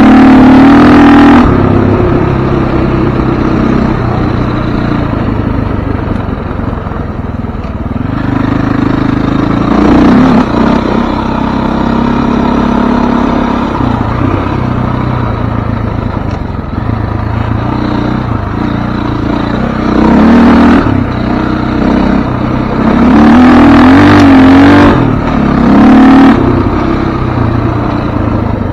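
Off-road vehicle engine running along a dirt trail, its pitch rising and falling as it speeds up and slows, with louder bursts of acceleration at the start, about ten seconds in, and several times near the end.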